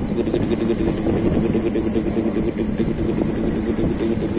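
A small engine running steadily at an even pitch, with a regular pulsing beat.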